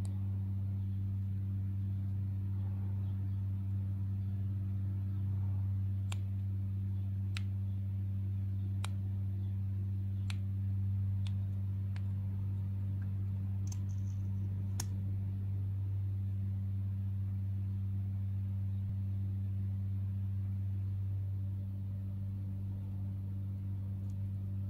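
A steady low hum, with a series of about eight small, sharp plastic clicks in the middle stretch, roughly one a second, as a lip gloss tube is handled and its sealed cap is opened.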